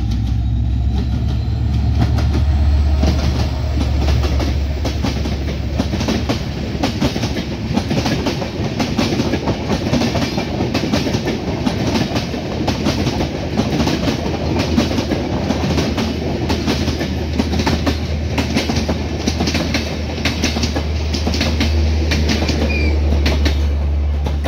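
A diesel-hauled Bangladesh Railway passenger train passing at speed: a low locomotive engine drone at first, then a long rake of coaches rumbling by with rapid clickety-clack of wheels over the rail joints.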